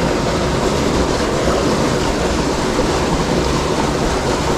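Creek water rushing over rocks: a steady, loud noise that stays even.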